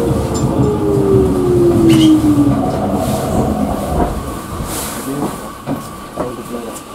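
Yagan Railway 6050-series electric train slowing to a stop: the traction motors' whine falls steadily in pitch and dies away over the first few seconds, over wheel and car rumble. A short hiss comes near the middle as the train comes to rest.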